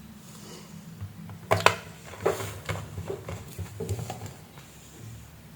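A few light clicks and taps, the loudest pair about a second and a half in, over a low steady hum.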